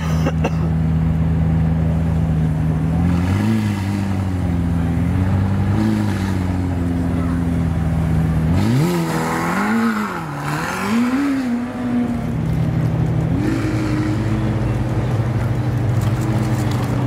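McLaren Senna GTR's twin-turbo V8 held at steady revs, then surging up and down several times, with the biggest swings near the middle, as the car drifts sideways. Bursts of tyre noise come with each surge as the rear wheels spin on the tarmac.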